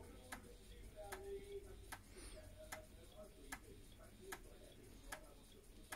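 Floppy disk drive's head stepper clicking softly as it moves the read/write head one track at a time during a format, a click about every 0.8 seconds, with the spindle motor faintly humming underneath.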